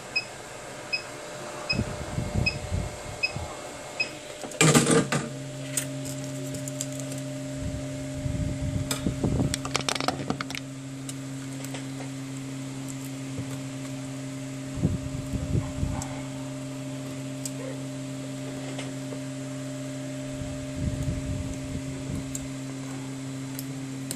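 Hot air gun running with a steady hum while the phone's display assembly is gently warmed. It starts after a loud clatter about five seconds in, with brief bursts of handling and rustling noise over it.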